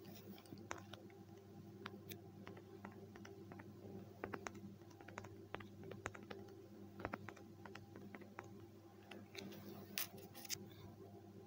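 Faint, irregular taps of typing a message on a phone's touchscreen keyboard, over a low steady hum.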